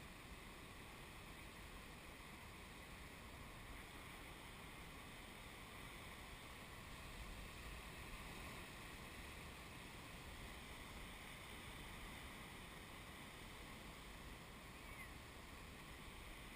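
Faint, steady roar of large ocean waves breaking, swelling a little about halfway through.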